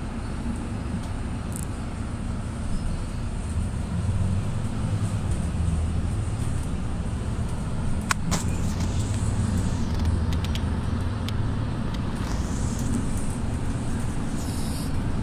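Mercedes-Benz Citaro city bus heard from inside the cabin while driving: a steady low engine and drivetrain drone with road noise, growing a little louder about four seconds in. A single sharp click comes about eight seconds in.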